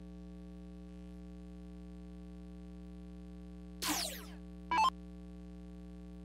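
Electronic soft-tip dartboard machine's sound effects over a steady electrical hum: about four seconds in a quick falling swoosh, then a short electronic beep, as the machine changes to the next player.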